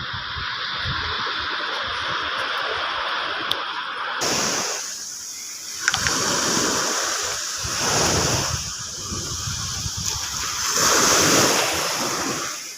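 Small waves washing in the shallows, the wash swelling and fading every two to three seconds, with a short sharp click about six seconds in.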